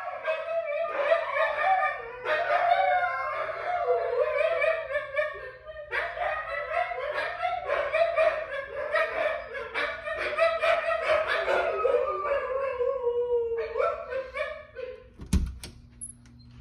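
Siberian huskies howling together, several long wavering howls overlapping, with a short break about six seconds in, dying away a couple of seconds before the end. Near the end come a couple of sharp knocks as a door is opened.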